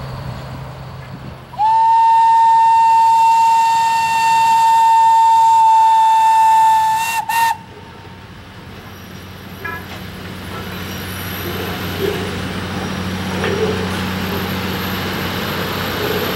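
Train whistle blowing one long blast of about five seconds, then a short toot, sounded for the road crossing. After it, the low, steady running of the train as it rolls over the crossing.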